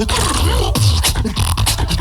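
Beatboxing through a PA: a fast run of vocal kick drums, snare and hi-hat sounds over a heavy bass line, with a short gliding vocal tone about half a second in.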